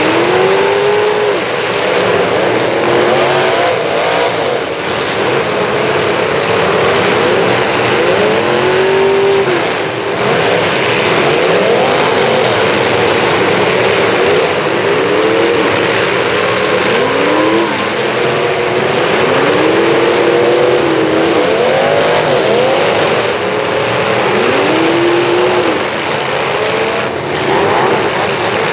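Many full-size demolition derby cars' engines revving hard and dropping back, over and over, several at once and overlapping in a loud, continuous din.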